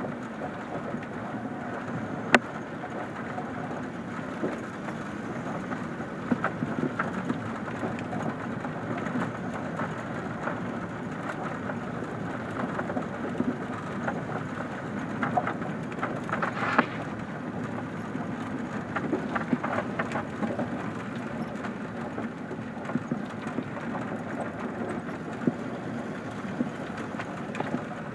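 Vehicle driving on a gravel track, heard from inside the cab: a steady crunching rumble of tyres on loose stones, with scattered sharp clicks and knocks of gravel and the body rattling.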